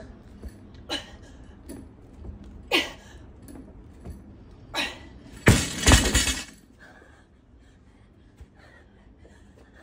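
Loaded barbell with bumper plates dropped onto rubber floor mats about five and a half seconds in: a loud crash followed by a couple of bounces. Before it, a few sharp exhales, one with each push press rep.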